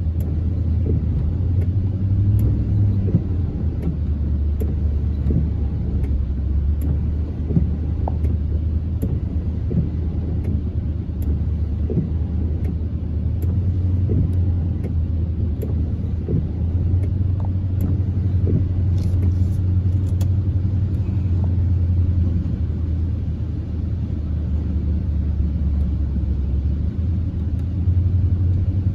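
Steady low rumble of a car driving through shallow floodwater on the road, heard from inside the cabin.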